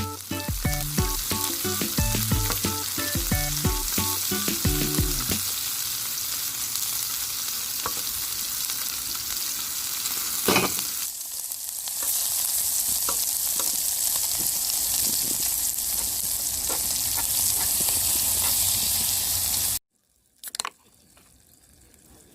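Food sizzling in a hot pan or on a grill, a steady hiss with a sharp pop about ten seconds in. It stops abruptly near the end. Background music plays over the first few seconds.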